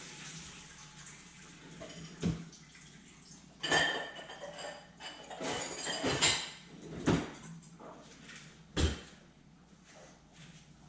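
Metal kitchen utensils clinking and knocking as someone rummages in the kitchen: a string of separate knocks and clinks, some with a short metallic ring, the busiest stretch near the middle.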